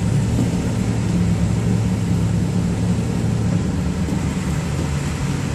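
Steady engine and road noise of a car driving on a snowy street, heard from inside the cabin as a low, even hum.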